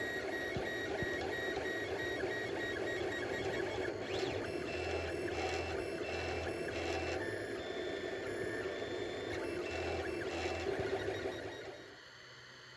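Monoprice Select 3D printer running as it finishes a print: its stepper motors whine in tones that shift from one pitch to another, over a steady hum. The motor sounds stop near the end, leaving only a fainter steady hum.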